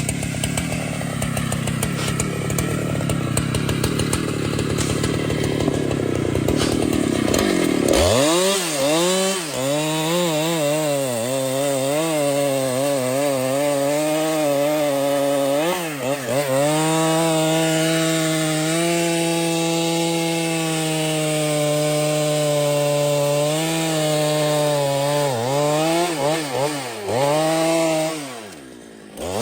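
Chainsaw cutting into a tree trunk at high revs. For the first several seconds it sounds rough and noisy; after that the engine note comes through clearly, its pitch sagging and recovering as the chain bites into the wood. Near the end it briefly drops away before revving up again.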